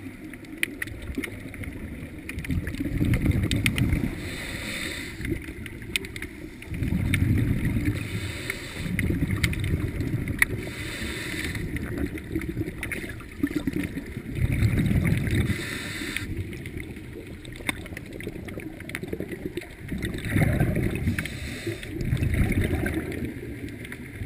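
Scuba regulator breathing heard underwater through a camera housing: a hiss on each inhale and a low rumble of exhaled bubbles, one breath every few seconds, with scattered clicks.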